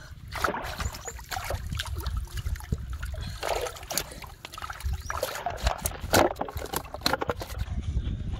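Shallow water splashing and trickling in irregular bursts as plastic-bottle fish traps are handled, with a caught fish thrashing at the surface, over a low rumble.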